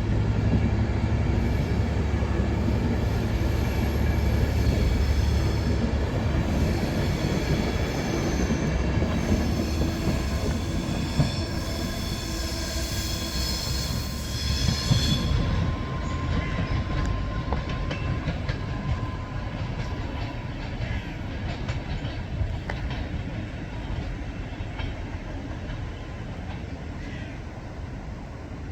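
A diesel train rumbling past the platform and slowly fading away, with a high-pitched wheel squeal that stops suddenly about halfway through.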